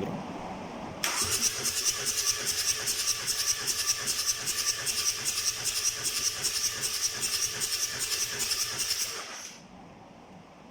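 Ford Transit 2.0 TDCi F3FA diesel engine cranked on its starter for a compression test on the third cylinder: a rhythmic, pulsing hiss that starts about a second in and stops suddenly after about eight and a half seconds.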